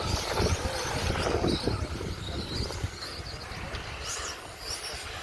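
Electric 1/10-scale 2WD RC buggies racing on a clay track, their motors whining up and down in pitch as they accelerate and brake. Wind rumbles on the microphone in the first couple of seconds.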